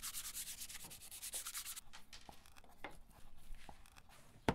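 Wood being hand-sanded: quick back-and-forth scraping strokes, several a second, along the edge of a wooden frame piece, stopping about two seconds in. A few light taps follow, then a sharp click near the end.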